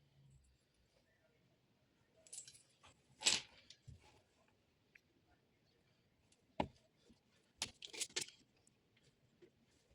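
Scattered light knocks and clinks of objects being handled: a few about two and a half seconds in, the loudest just after, a sharp single knock midway, and a quick run of clinks about eight seconds in.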